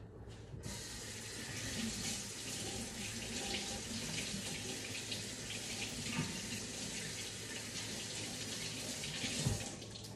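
Kitchen faucet running hot water over a glass syrup dispenser to rinse the stickiness off. The water starts about half a second in and shuts off just before the end, with a soft knock shortly before it stops.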